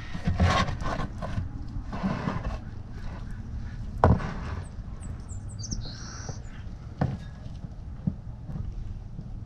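Old gear oil draining from a car's differential in a thin steady stream into a plastic drain pan, over a low steady rumble, with three sharp clicks from the drain plug being handled.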